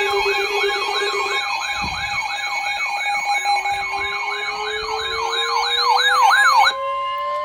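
Several electronic sirens sounding together, one yelping up and down about three times a second and another wavering higher, over steady tones. They cut off sharply near the end, leaving a slow rising tone still winding up.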